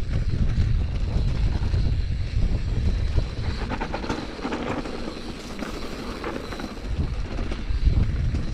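Wind buffeting the microphone of a mountain bike ridden over rough singletrack, with the tyres and bike clattering over the ground. For a few seconds around the middle the wind eases and the rattling comes through more clearly, before the wind rises again near the end.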